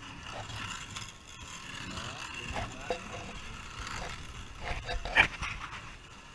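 Slot cars running on a wooden routed track: a steady electric whir with clicking and rattling, and one sharp knock about five seconds in.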